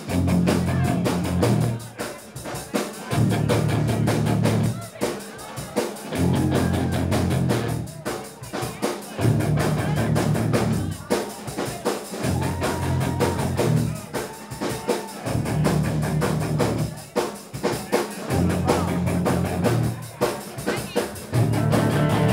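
Live rock band playing an instrumental passage: a drum kit keeping a steady beat with bass drum and snare, and electric bass and guitars playing a heavy low riff that comes in and stops roughly every three seconds.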